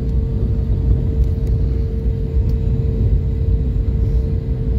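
Airliner cabin noise while the plane moves on the ground: a steady low rumble from the engines and rolling, with a steady mid-pitched hum.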